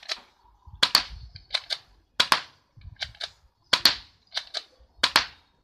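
Spring-powered airsoft mini Uzi (P.815A) firing single shots with its suppressor off: about four sharp snaps roughly a second and a half apart, with lighter clicks between them.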